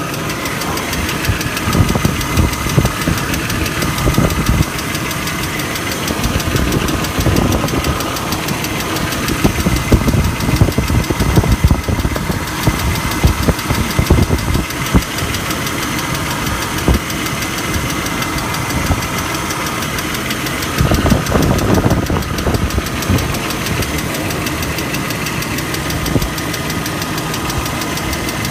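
BMW E39's engine running with a fast, steady ticking on top of its drone, a tick whose cause the owner cannot place. Irregular low rumbles come and go over it, loudest around the middle and again about three quarters of the way through.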